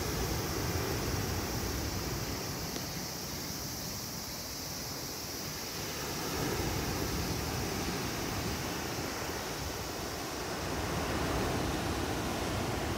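Calm sea waves washing onto a sand beach: a steady rushing noise that swells a little about six seconds in and again near the end.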